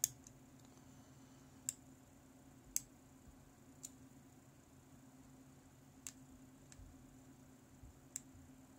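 About six faint, sharp clicks at irregular spacing from a lock pick working the pins inside an EVVA GPI pin-tumbler cylinder during single-pin picking, as the pins are probed for binding and setting.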